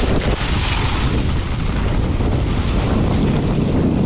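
Strong wind buffeting the microphone in a dense, steady rumble, with the hiss of a snowboard sliding and carving over snow.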